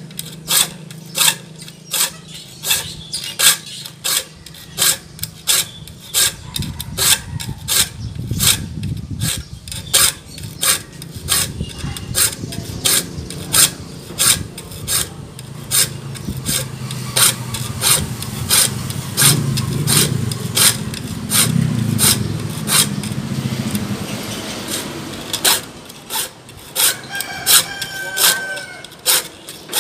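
Saw file rasping across the teeth of a wood handsaw clamped in a vise, in quick, regular strokes one after another, sharpening the teeth back to their original shape.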